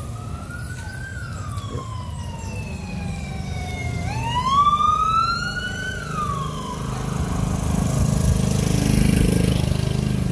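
A siren wailing: its pitch rises, falls slowly for about three seconds, then climbs sharply about four seconds in and dies away. After that, the rushing sound of a passing road vehicle grows louder near the end.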